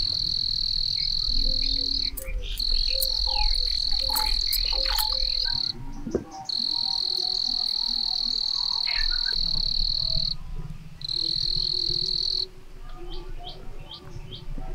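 An insect singing a steady, high-pitched shrill in stretches of a few seconds with short breaks, stopping near the end. Birds chirp in between.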